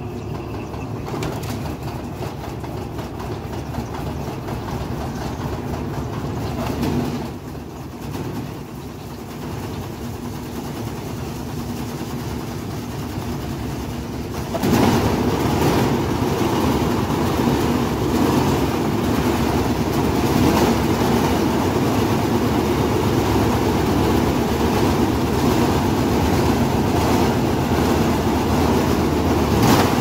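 A 15 kg top-loading washing machine on its spin cycle, the empty basket whirling at speed with a steady rumble and rattle. About halfway through it suddenly gets louder and harsher, and stays that way.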